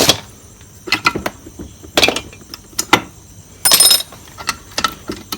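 Metal engine parts clinking and knocking as the gearbox gears and shafts are handled in the split crankcase: sharp taps about once a second, with a short metallic clatter that rings briefly a little before the end.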